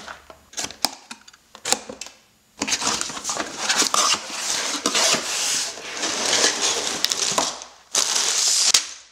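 A LEGO set's cardboard box being opened, a few sharp taps and clicks from the box and its flap, then a long stretch of crinkling plastic bags with loose bricks rattling inside as the bags of pieces are pulled out and spread on a table, and a last rustle of bags near the end.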